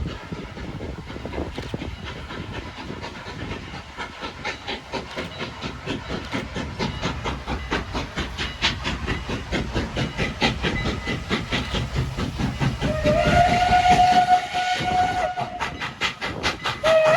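Ex-CN No. 89, a 2-6-0 mogul steam locomotive, approaching with a quick, even beat that grows louder and faster. About two-thirds of the way in it sounds its Pennsylvania Railroad 'banshee' chime whistle in one long blast of about two seconds, and a second blast begins near the end.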